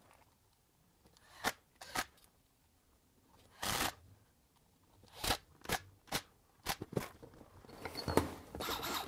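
Handling sounds on a stainless steel workbench: scattered clicks and knocks as a DeWalt cordless impact wrench and loose parts are moved about, then a rag rubbing over the tool near the end.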